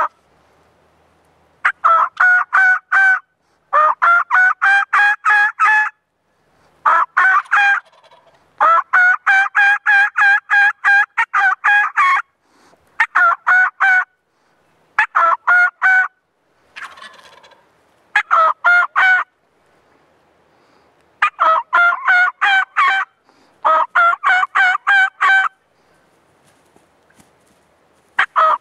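Wild turkey gobblers gobbling again and again: about ten loud bouts of rapid rattling notes, each one to three seconds long, with short pauses between them.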